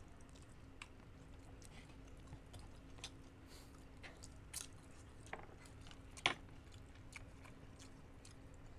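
Faint close-up chewing of chicken binakol with scattered small mouth clicks and smacks, one sharper click about six seconds in, over a faint steady hum.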